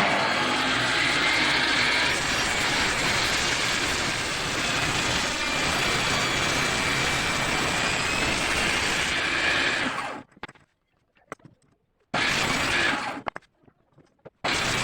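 Electric woodworking power tool running on teak wood, steady for about ten seconds, then stopping, with two short bursts near the end.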